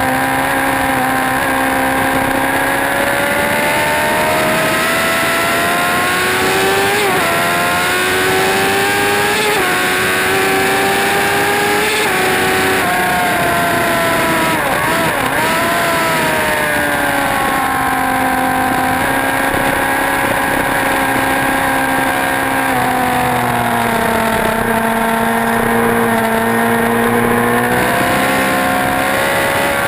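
Racing motorcycle engine at full track pace, revving up through the gears with sudden drops in pitch at each shift. About halfway through, the revs bounce quickly up and down as it brakes and downshifts, then it runs steadier and builds again.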